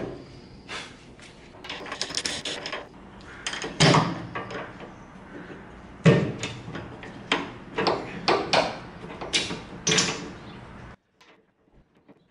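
Metal fuel-tank straps being handled and fitted to their mounting bracket: an irregular string of clanks, scrapes and rattles, the loudest knocks about four and six seconds in. It stops abruptly about a second before the end.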